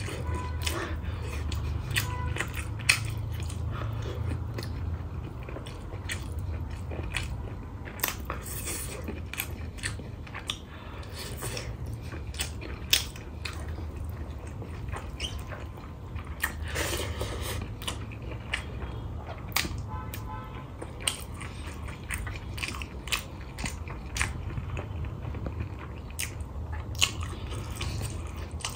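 Close-miked eating sounds: a person chewing and biting through rice, pork curry and mustard greens eaten by hand, with frequent short sharp clicks and smacks over a steady low hum.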